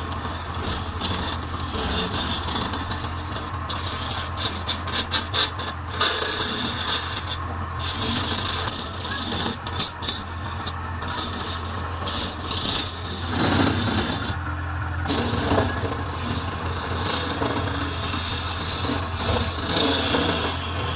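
Wood lathe running with a steady low motor hum while a hand-held chisel cuts the spinning wood blank, a continuous scraping rasp as shavings come off. The cutting noise drops away briefly a couple of times.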